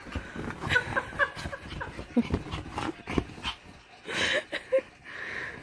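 Small dog whimpering and giving short yips, with bursts of scuffling and rustling as it paws at the bedding.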